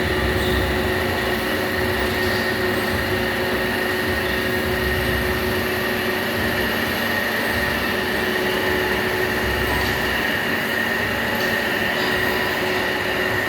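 Large 8-metre metal-working lathe running steadily, a constant high whine over a machine hum.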